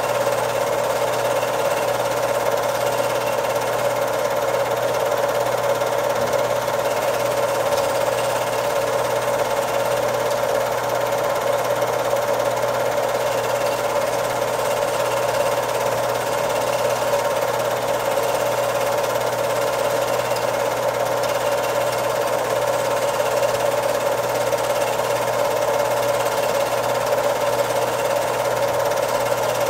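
Home-movie film projector running steadily: an even, unbroken mechanical running noise from the projector's motor and film transport, the only sound on an otherwise silent film.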